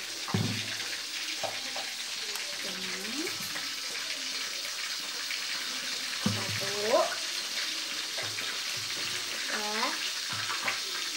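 Catfish frying in hot oil in a wok, a steady sizzle, with a few light knocks of a metal spoon as oil is ladled into a pan. Short vocal sounds come through now and then.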